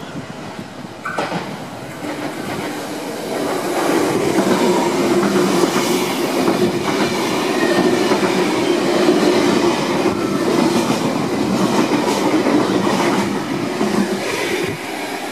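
Intercity V set double-deck electric train running past a platform at speed, wheels clattering on the rails over a steady hum. It gets loud about four seconds in and stays loud until near the end, easing off as the last carriages pass.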